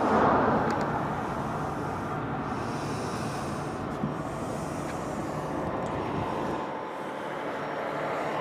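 An engine idling steadily, an even rumble without a clear pitch that cuts in suddenly at the start.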